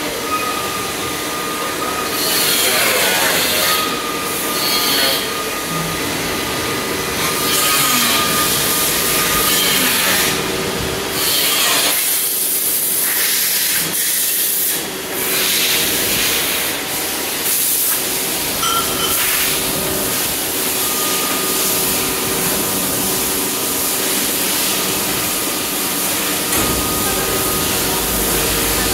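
Machine-shop noise from CNC lathes: a steady hiss with a faint machine whine, and a sharper hiss from a compressed-air blow gun that stops and starts several times.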